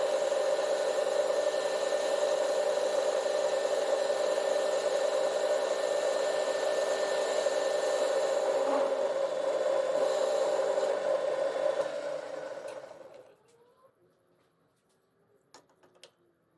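Metal lathe turning a jacking screw blank: a steady motor and gearbox whine with cutting noise, which dies away about twelve seconds in as the lathe is stopped. A few faint clicks follow.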